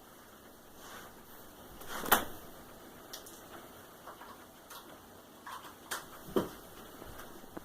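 Handheld vacuum being handled while switched off: scattered clicks and knocks, a sharp click about two seconds in, lighter ticks after it, and a duller knock near the end.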